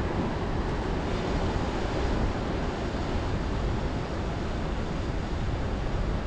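Ocean surf washing on the shore, a steady rushing noise.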